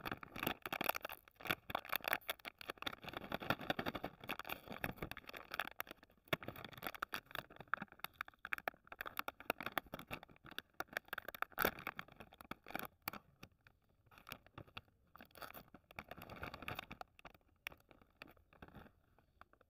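Plastic snack wrapper with a foil lining crinkling and crackling as it is squeezed, twisted and torn open by hand, a dense run of small crackles that thins out and fades over the last few seconds.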